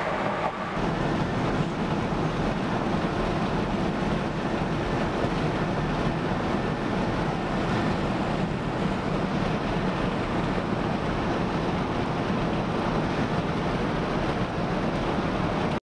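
Steady road and wind noise from a vehicle travelling at highway speed, an even rushing hiss with a low drone underneath.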